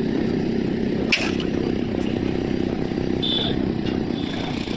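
A small engine running steadily with a rough, low rumble, with a light click about a second in.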